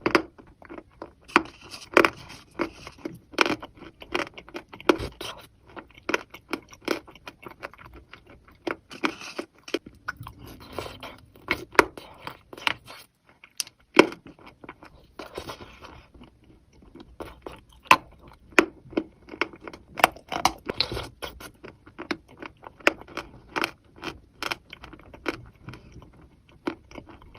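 Close-up chewing and crunching of wet chalk coated in thin clay paste: a run of sharp, irregular crunches and crackles, several a second, pausing briefly now and then.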